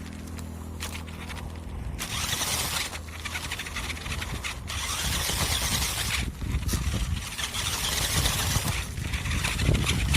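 Battery-powered RC truck heard from a microphone mounted on board. A steady low hum gives way about two seconds in to loud driving noise from the motor and drivetrain, which drops out briefly several times.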